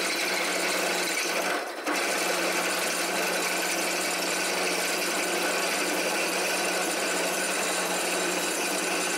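Benchtop drill press running steadily, its twist bit boring through a metal spacer block held in a vise, with a brief drop in the sound just under two seconds in.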